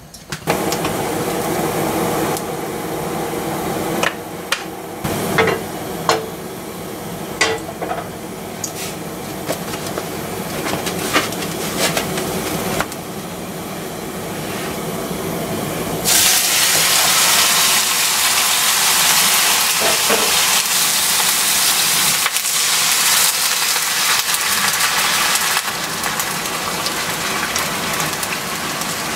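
A steady hiss from the hot frying pan, with a few sharp clicks and knocks, then about halfway through a much louder, steady sizzle as partly frozen sliced beef goes into the hot non-stick pan and fries.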